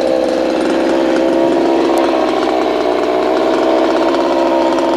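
Chainsaw engine running steadily at speed, its pitch wavering slightly.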